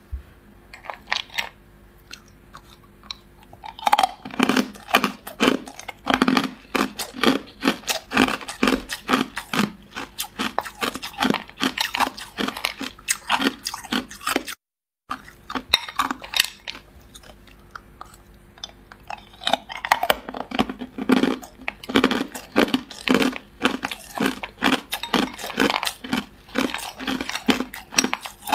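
Ice cubes coated in matcha powder being bitten and crunched in the mouth, in dense runs of loud, sharp crunches. A few light clicks come first, and the sound cuts out briefly about halfway through before the crunching starts again.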